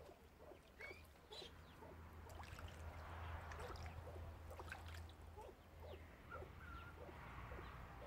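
Faint light water splashing and trickling as a mandarin duck paddles about in a small pond, with a run of soft, short bird calls at about three a second. The splashing is strongest in the middle.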